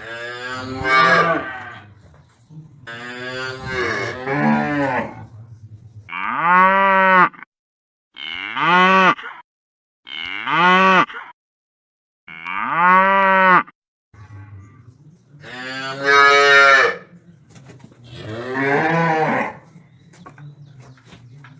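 Cows and calves mooing: about eight separate calls of one to two seconds each, with short gaps between them.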